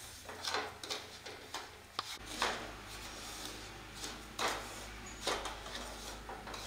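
Wooden spatula stirring and scraping semolina (rava) around a non-stick kadai as it roasts in ghee, in repeated rasping strokes. A low steady hum comes in about two seconds in.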